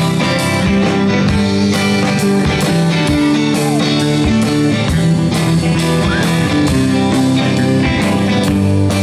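Live band playing an instrumental passage without vocals: electric guitars over bass and a steady drum beat.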